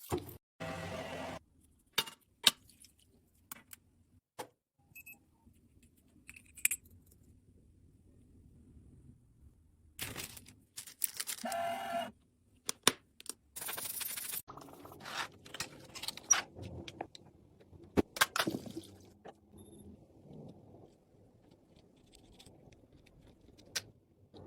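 Cosmetic containers and tools being handled: scattered clicks and taps, with a few short stretches of scraping.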